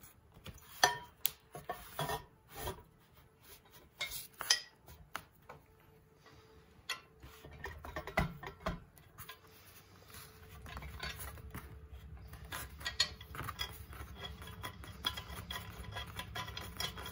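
Metal clinks and knocks as a steel square tube and a long bolt are handled, then from about ten seconds in a steady run of fast ticking and rubbing as the bolt is turned by hand, threading into the nut inside the tube.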